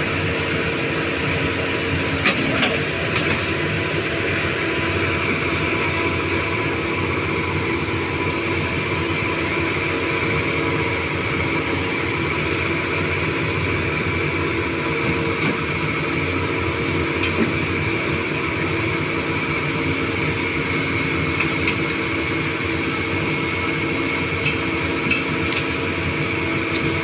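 A Doosan 225 excavator's diesel engine and hydraulics running steadily with a constant whine, and a few sharp metallic clanks.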